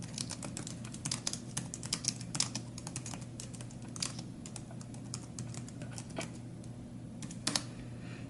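Typing on a slim Nulaxy wireless Bluetooth keyboard: quick runs of key clicks for about the first four seconds, then scattered keystrokes, with a close pair near the end.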